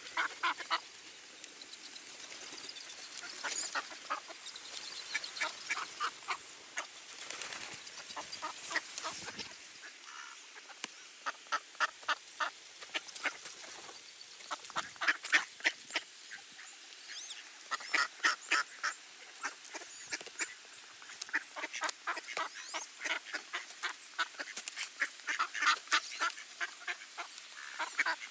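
Mallard ducks quacking in repeated runs of short, rapid calls.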